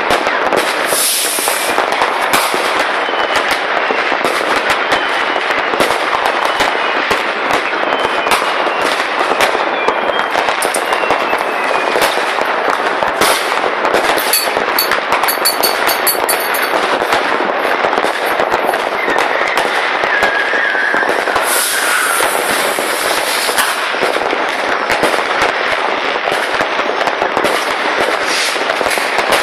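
Many fireworks and firecrackers going off across a town at once: a dense, unbroken crackle of bangs, with now and then a faint falling whistle.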